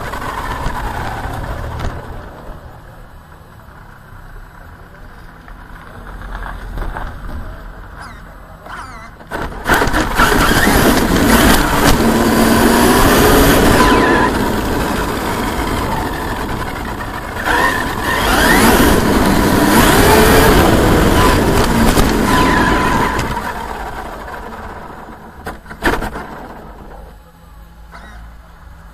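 Traxxas X-Maxx RC monster truck on 8S, heard from a camera mounted on its body: the brushless motor and drivetrain whine rises and falls in pitch over tyre and road noise. There are two long hard runs, about ten seconds in and again near the middle, with quieter rolling before, between and after.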